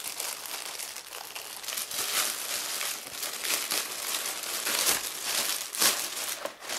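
Thin clear plastic bag crinkling and crackling as hands open it and rummage through it, continuous, with a short lull near the end.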